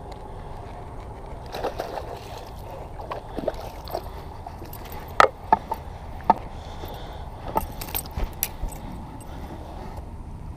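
Scattered light clicks and knocks, the loudest a few seconds in, over a steady low background rumble.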